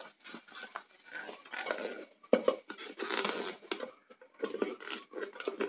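A clear plastic clip-on lid being fitted onto a steel bowl: small clicks, knocks and scrapes of plastic on metal as the lid is seated and its clip latches are fastened, with a sharper click near the end.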